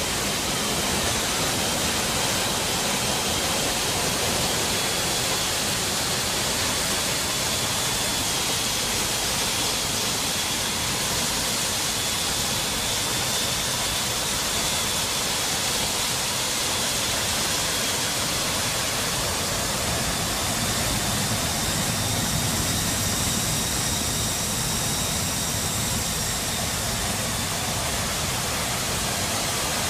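Steady rush of wind and jet engine noise inside a C-17 cargo hold with the paratroop door open. A faint high whine runs through it, and higher whines join about two-thirds of the way in.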